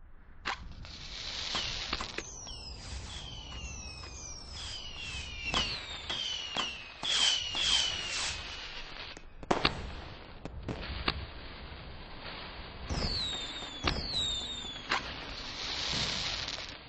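Fireworks going off: many whistling rockets, each whistle falling in pitch, mixed with sharp bangs, with a second cluster of whistles about two-thirds of the way through and bursts of hissing crackle near the start and the end.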